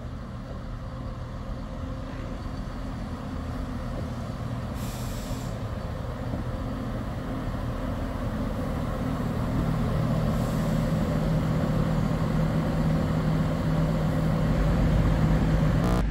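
Diesel multiple-unit train pulling in, its engine drone growing steadily louder, with two short hisses of air about five and ten seconds in.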